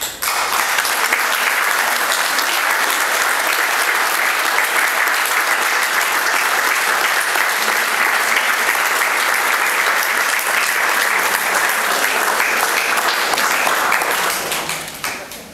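Audience applause, many people clapping together. It starts suddenly, holds steady, and dies away near the end.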